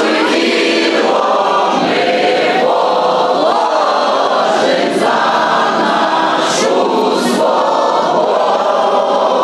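A crowd of people singing together in unison, many voices holding long notes.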